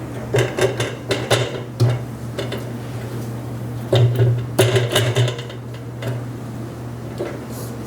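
Wooden honey frames being handled in a metal honey extractor as they are flipped to spin the other side: clattering knocks in two bursts, about a second in and again around four to five seconds in, over a steady low hum.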